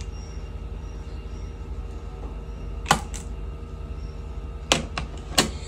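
Plastic handset of a corded desk telephone handled by a toddler, giving three sharp knocks: one about three seconds in and two close together near the end, over a steady low hum.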